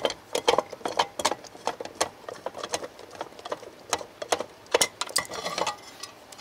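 Small, sharp metallic clicks and taps, irregular at about three a second, as a thumb screw is turned out by hand from the underside of an all-metal RC excavator's rear cover.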